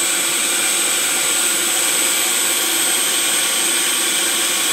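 Food processor motor running steadily at full speed with a high whine, whipping a pink batter in its bowl.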